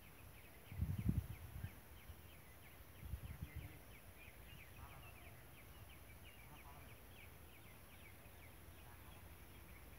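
Field ambience with rapid, irregular high-pitched chirping throughout, and two short low rumbles on the microphone about one and three seconds in.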